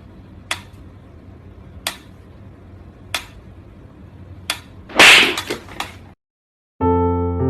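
Sharp taps about every second and a quarter over a faint steady hiss, then a louder noisy burst lasting about a second about five seconds in. Electric piano music starts near the end.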